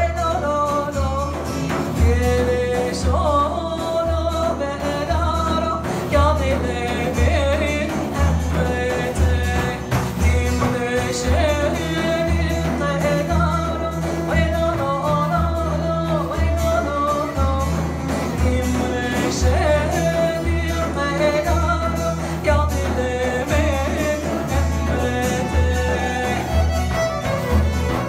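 Live folk music: a woman singing over a long-necked saz (bağlama), with frame drums keeping a steady low beat.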